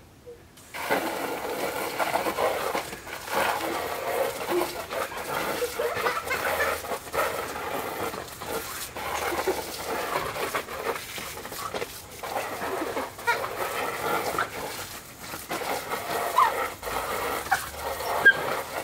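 Water from a garden hose spraying onto a plastic paddling-pool sheet, starting suddenly about a second in, while a young Shetland sheepdog barks repeatedly at the spray.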